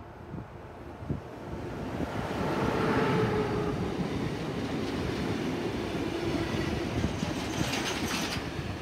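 An electric locomotive hauling a container freight train passes close by. The sound swells as the locomotive goes past about two to three seconds in, then settles into the steady rumble and clatter of container wagons rolling over the rails. There is a short high-pitched wheel screech near the end.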